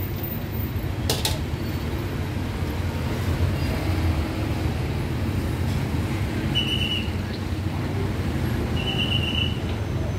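Busy street-market background noise with a steady low rumble of traffic, and two short high beeps in the second half.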